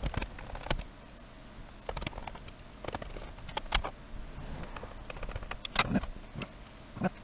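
Scattered clicks and knocks, about six sharp ones at uneven intervals with lighter ticks between, from a DAB radio's casing and small tools being handled as the radio is screwed back together.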